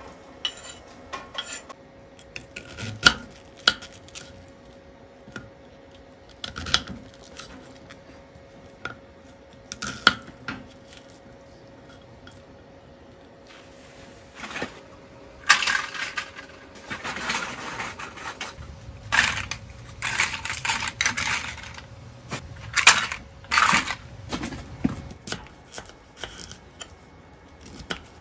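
Food prep with a knife on a wooden cutting board: scattered knocks and clinks of the knife and utensils, then from about halfway a denser run of knife cutting and scraping through vegetables on the board. A faint steady hum sits under most of it.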